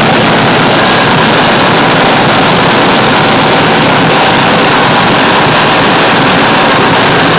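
Large diesel engine of a double pumper unit running steadily and loudly close up, with its radiator fan turning, on the engine's first start.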